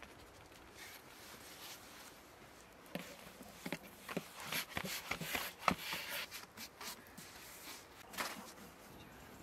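Soft, scattered taps, rubs and rustles as flatbread is baked in a clay tanoor oven and handled by hand. They are busiest in the middle.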